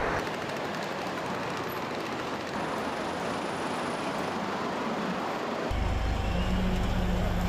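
City street traffic noise. About three-quarters of the way through it changes to a louder, steady low engine hum.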